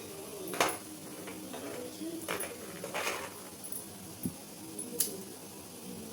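About four sharp clinks and knocks of kitchen utensils and dishes, spaced a second or two apart.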